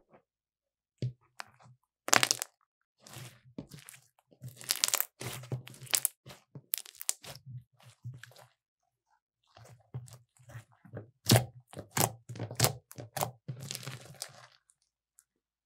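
Glittery violet slime being stretched, pressed and squeezed by hand, giving irregular sticky crackles and sharp pops. There is a short pause a little past halfway.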